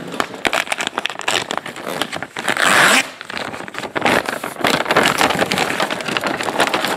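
Crinkly plastic packaging being handled and torn open by hand: steady crinkling and rustling, with a louder rip about two and a half seconds in.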